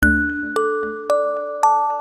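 Music: a slow, gentle melody of chiming, bell-like struck notes, one about every half second, each ringing on until the next.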